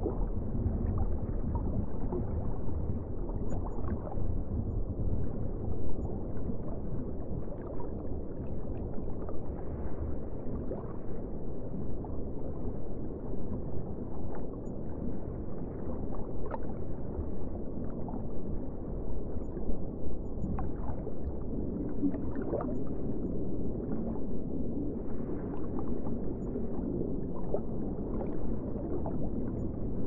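Underwater water ambience: a steady, muffled wash of moving water, heaviest in the low end, with soft gurgles scattered through it.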